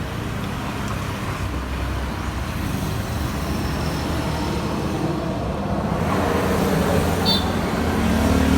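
Steady low rumble of a motor vehicle engine running, growing louder near the end, with one short high click about seven seconds in.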